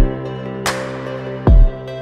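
Background music: a slow beat with a deep kick drum about a second and a half apart and a bright hit between, over soft held chords.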